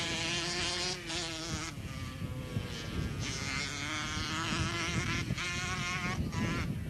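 Single-cylinder two-stroke engine of a 1976 Honda CR125M Elsinore motocross bike buzzing as it is ridden, its pitch rising and falling and dropping back several times as the rider works the throttle and gears.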